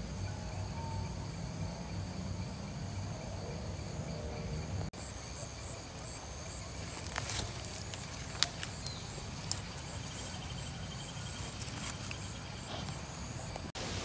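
Outdoor ambience of insects trilling steadily at a high pitch over a low rumble, with a few sharp clicks in the middle.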